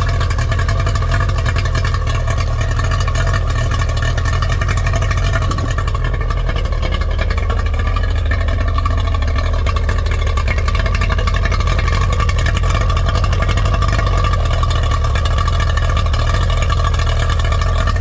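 Boat outboard engine idling steadily out of the water with the choke off, running smoothly on cooling water fed from a garden hose.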